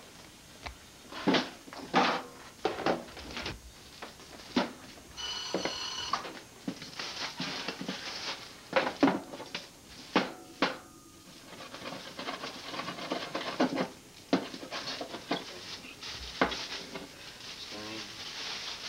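Irregular knocks, clicks and scrapes of a knife and red-handled snips working on a wooden cutting board as a skinned muskrat carcass is cut up. A brief ringing tone sounds about five seconds in.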